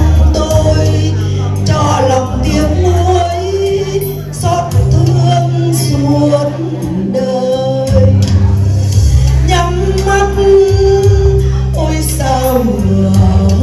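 A woman singing a slow Vietnamese ballad through a microphone over electronic keyboard accompaniment, with long held notes and sustained bass notes beneath.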